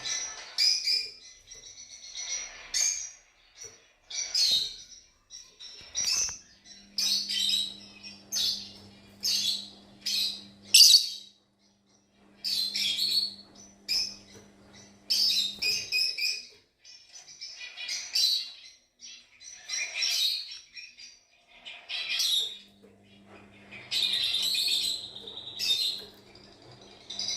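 Fischer's lovebirds chirping, high-pitched calls in short bursts about once a second.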